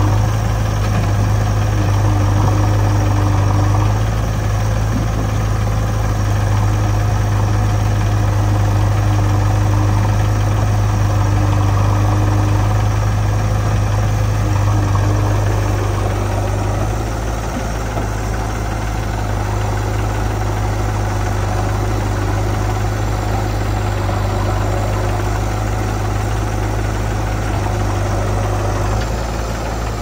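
Diesel engine idling steadily with a deep, even drone that eases slightly about halfway through.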